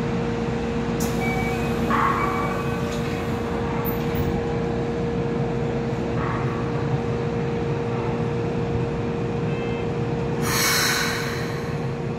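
Running sound inside a Keikyu 600 series train in a subway tunnel: a steady rumble of wheels on rail with a constant low hum, as the train draws into a station. A short hiss about ten and a half seconds in.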